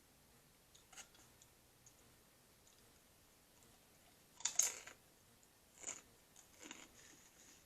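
A person eating fast food close to the microphone: a few faint clicks, then a louder bite about four and a half seconds in, followed by quieter chewing.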